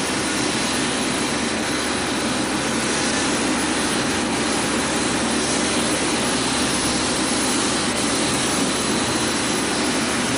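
Aircraft engines running, a steady, even noise that holds unchanged throughout.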